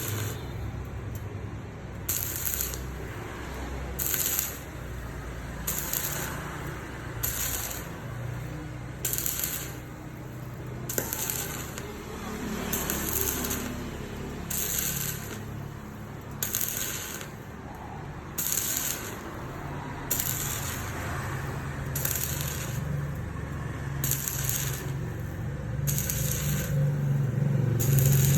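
Welding: short crackling, hissing bursts repeating irregularly about once or twice a second, over a low steady hum.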